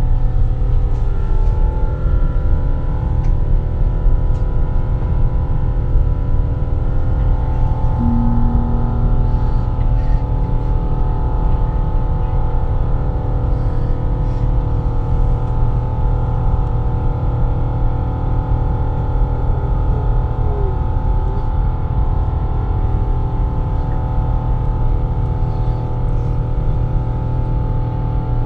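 Steady low drone of an airliner in flight, heard inside the cabin: engine and airflow noise with several steady humming tones over it.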